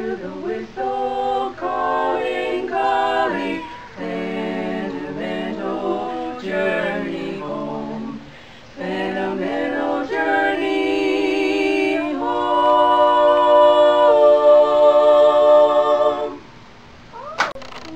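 A quartet of women singing a cappella in four-part harmony: a run of short sung phrases, then a long held chord, the loudest part, that stops about three-quarters of the way through. A single short sharp click follows near the end.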